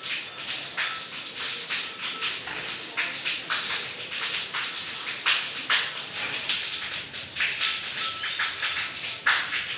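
Cattle feeding from a wooden trough of dry chopped straw, their muzzles rustling and crunching through it in irregular crackles.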